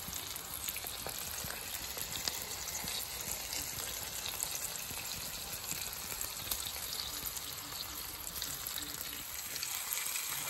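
A5 Wagyu ribeye steak frying on a flat-top griddle, a steady sizzle with many small crackles.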